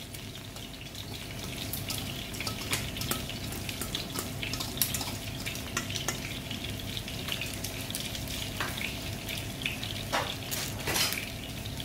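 Boiled whole lentils being tipped from a metal colander into a steel pot of macaroni and rice: a scattered patter of small clicks and scrapes over a steady low hum.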